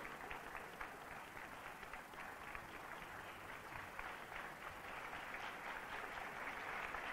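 Theatre audience applauding, fairly faint and steady, swelling a little near the end.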